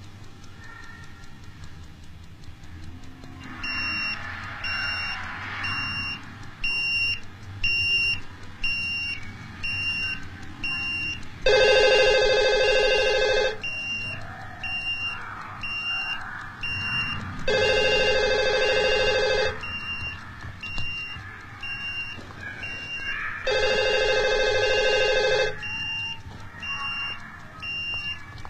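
Electronic beeping, a short high beep about every 0.7 s, starting a few seconds in; over it a telephone rings three times, each ring about two seconds long and about six seconds apart.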